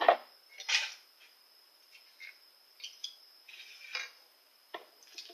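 Scissors cutting a thin plastic candy-kit tray to free the small triangular measuring scoop. Two sharp snips within the first second, then softer clicks and scrapes of plastic with pauses between.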